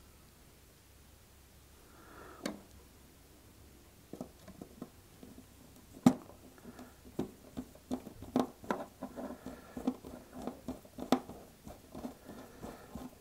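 Small magnetic screwdriver driving an M.2 screw into the standoff of a PCIe M.2 SSD adapter card: irregular small clicks and scrapes of metal on metal, starting about four seconds in, the sharpest click about six seconds in.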